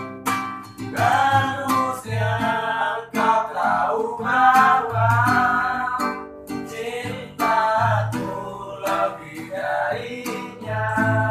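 Acoustic guitar strummed in a steady rhythm, with a wavering melody line carried over it and no words sung.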